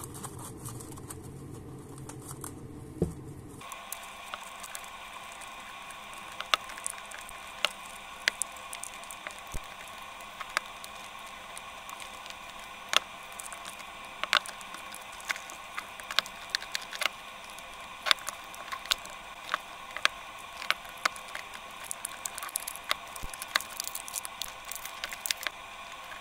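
Irregular small clicks and plastic crinkling as a piston ring is worked onto a diesel piston over a plastic sleeve, over a steady faint hum.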